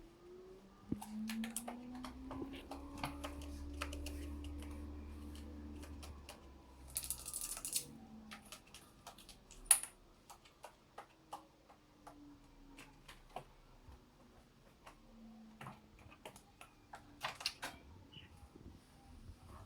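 Irregular light clicks and taps, scattered through the whole stretch, with a low hum during the first several seconds, a brief rustle about seven seconds in and one sharper click just before ten seconds.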